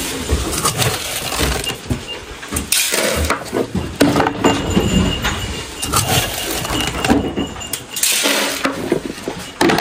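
Dry grain feed poured and rattling into plastic feed pans, with the clatter and clink of the scoop and feed bowl being handled against the wooden rail; two longer pours come about three seconds in and near the end.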